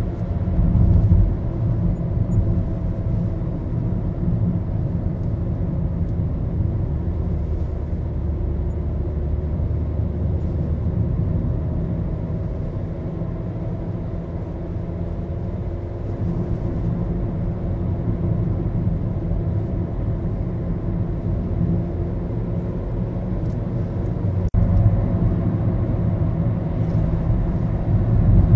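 Maruti Suzuki Baleno driving, heard from inside the cabin: a steady low rumble of engine and road noise with a faint engine hum, growing a little louder near the end.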